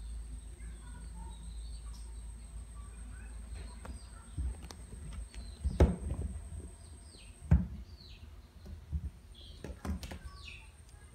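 Two cats play-wrestling on a bed: rustling and soft thumps of their bodies and paws on the bedding, with two louder thumps a little past the middle. Faint short high chirps sound in the background.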